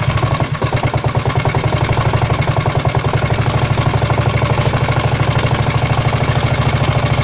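139QMB 50cc single-cylinder four-stroke scooter engine idling, with rapid, even pulses. It carries a knock that the owner cannot account for.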